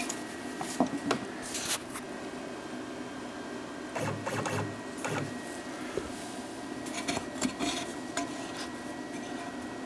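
Steady whine and hum from a DIY CNC machine standing under power, with scattered light knocks and clinks as an aluminium soda can is handled and set down on the wooden spoilboard under the Z-axis bit.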